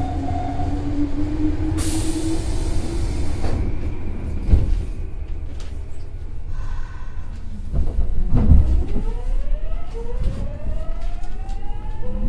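Nagoya subway 3000-series train: a steady low rumble, with a hiss of air about two seconds in and two heavy clunks a few seconds apart. Then, from near the end, the traction motors' whine rises in pitch in several parallel tones as the train gathers speed.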